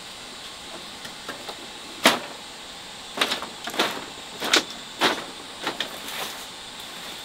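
A dozen or so irregular knocks and clatters, the loudest about two seconds in, over a steady high hum.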